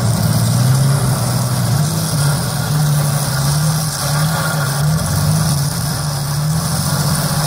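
Mitsubishi L200 pickup's engine running under load in deep mud, the revs rising and falling in steps again and again as it tries to crawl forward.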